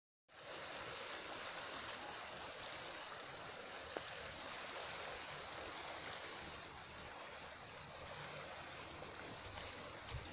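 Steady hiss of sea water washing against a rocky shore, with a fluttering low rumble beneath.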